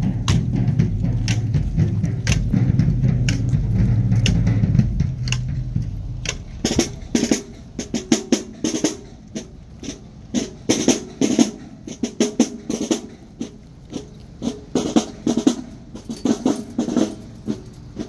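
Marching band drumline playing a cadence: snare, tenor and bass drums. It is dense and loud for about the first six seconds, then drops to quieter, separate sharp drum strokes in quick groups.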